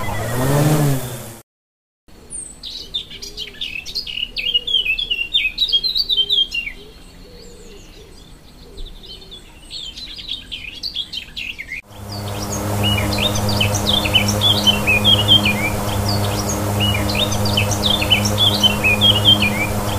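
A short sound effect fades out in the first second, then after a brief silence small birds chirp and sing rapidly. About halfway through, music with steady held low notes comes in under the continuing birdsong.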